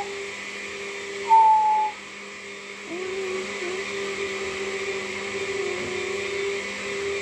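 A steady electronic-sounding drone of several held tones. About a second in, a short, loud whistle-like tone falls slightly in pitch. From about three seconds, a lower wavering tone comes in and is held.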